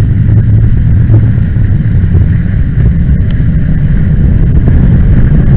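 Steady, loud low roar of fire hose lines flowing water onto a large fuel fire, heard close up on the hose line.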